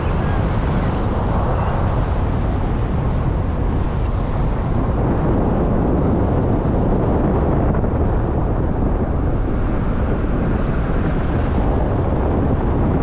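Steady, loud rumble and wind noise of a moving road vehicle in motion, with no engine note standing out.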